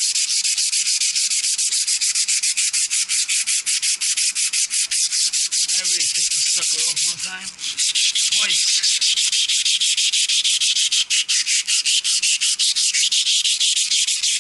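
Sandpaper rubbed hard over metal, smoothing the Geareducer shaft and coupling fit so the new coupling slides on easily. Rapid, even back-and-forth scratching strokes, about five a second, with a short break about seven seconds in.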